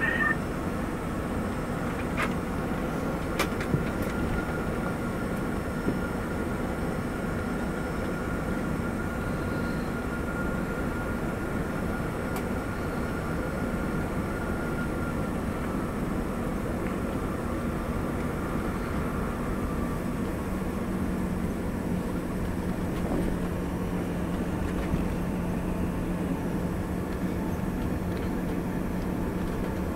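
Cabin noise of an Embraer ERJ145 taxiing after landing: a steady rumble and hiss from its rear-mounted Rolls-Royce AE 3007 turbofans at idle and the cabin air, with a faint high whine that fades out about halfway and a low hum that comes in later. A few light clicks near the start.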